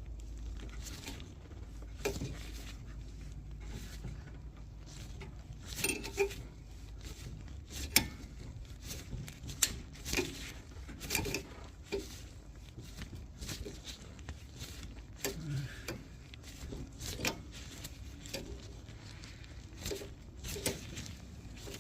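Steel C-clamp being turned to press a rear brake caliper piston back in against an old pad, with scattered metallic clicks and clinks at irregular intervals.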